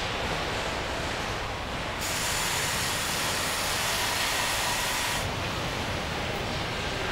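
Steady assembly-hall noise, with a loud hiss of compressed air that starts about two seconds in and cuts off about three seconds later.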